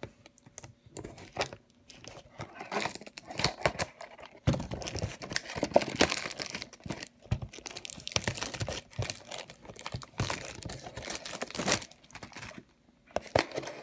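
Packaging of a Pokémon Mystery Power Box crinkling and tearing as it is opened by hand, in irregular crackles with a short pause near the end.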